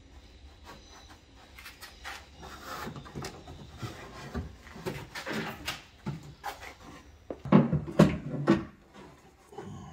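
Trim covers and loose parts being handled and pulled out of a car's boot: scattered knocks and rubbing, then three heavy clunks about half a second apart near the end.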